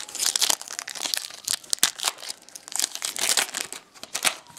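Foil wrapper of a 2012 Bowman Chrome baseball card pack crinkling and tearing as it is pulled open by hand, an irregular run of sharp crackles.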